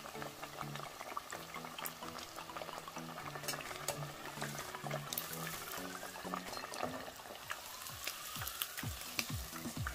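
Panko-breaded fish fillet deep-frying in hot oil: a steady crackling sizzle with scattered sharp ticks. Soft background music with held low notes plays underneath.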